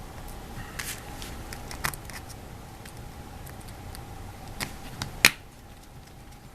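Scattered small clicks and taps of tools and small parts being handled during iPhone 4 reassembly, with one sharper click about five seconds in, over a faint steady hum.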